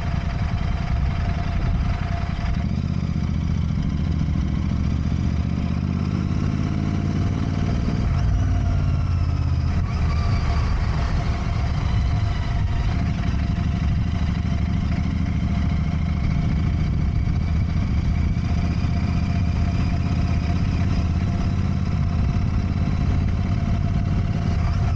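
Royal Enfield motorcycle engine running while riding, with a change in the engine note about eight seconds in.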